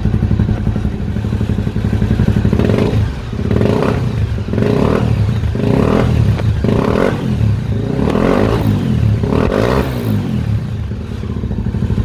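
Honda XR 250 Tornado single-cylinder four-stroke engine running on the stand. It idles, then is blipped through about seven quick revs roughly a second apart, then settles back to idle near the end.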